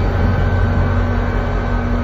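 Head-end power generator of a GP40PH-2B diesel locomotive running: a loud, steady low drone with a constant whine above it.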